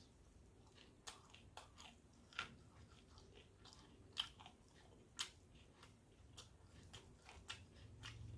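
A person chewing food with the mouth close to the microphone: irregular sharp, wet mouth clicks and small crunches, several a second, all faint.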